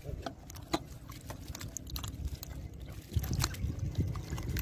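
Hands working through thick wet mud, squelching and slapping, with scattered short sharp clicks; a low rumble grows louder about three seconds in.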